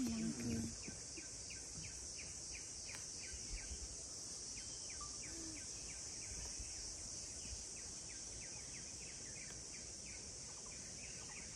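Forest ambience: a steady, high-pitched drone of insects, with a short chirp repeating about twice a second. A brief low voice-like sound comes right at the start.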